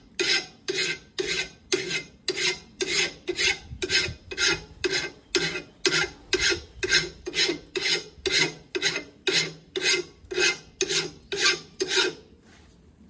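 Hand file scraping back and forth on a steel tractor exhaust pipe in steady strokes, about two and a half a second, filing down a lump so the muffler can slip further onto the pipe. The strokes stop about twelve seconds in.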